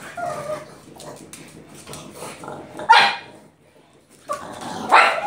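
A pug barking in short, sharp barks, the loudest about three seconds in and again near the end, while it begs for a ball held out of its reach.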